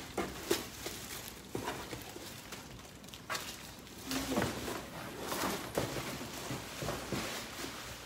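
Plastic wrapping crinkling and rustling as bagged handbags are rummaged through in a cardboard box, with scattered light knocks. A short hum of a voice about four seconds in.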